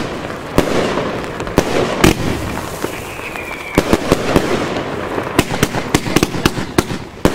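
Funke Nishiki Kamuro 30 mm firework battery firing: a rapid run of sharp bangs as shots launch and burst, with dense crackling between them and a short falling whistle about three seconds in.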